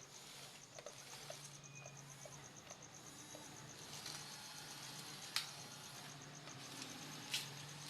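Faint, fast, even chirping of an insect such as a cricket, with a low steady hum underneath and two sharp clicks, one a little past the middle and one near the end.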